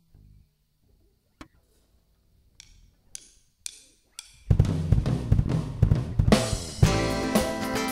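Drum kit with bass guitar: four evenly spaced count-in taps about half a second apart, then about four and a half seconds in the full groove comes in loud, with kick, snare and cymbals. A loud crash hits about six seconds in, and from there sustained bass notes sound under the drums.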